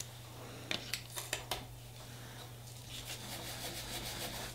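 A few light clicks, then a soft pad rubbing across a steel nail-stamping plate, building up near the end as purple polish is wiped off the plate to clean it.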